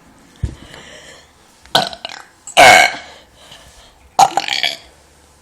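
A person burping loudly on purpose: a short burp just before two seconds in, the longest and loudest just after it with a falling pitch, and another around four seconds in.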